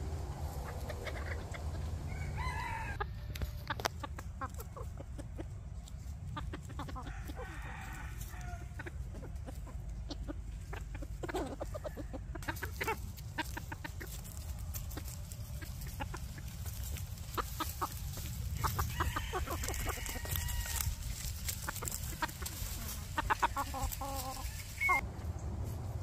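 Phoenix bantam roosters crowing several times, with clucking and short clicks between the calls.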